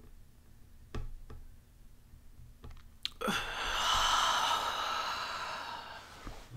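A person's long, breathy exhale through the open mouth, a slow calming meditation breath. It starts about three seconds in and fades after about three seconds, with a few faint clicks before it.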